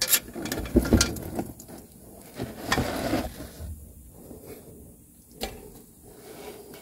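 Socket ratchet clicking in quick, even strokes for about the first second as a fastener is worked under the Kawasaki Mule, then rubbing and scraping from handling under the vehicle and a single sharp knock.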